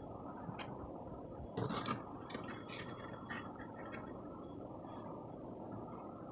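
Kitchenware being handled: scattered light clinks, clicks and scrapes, bunched together about a second and a half to three and a half seconds in, over a steady low background hiss.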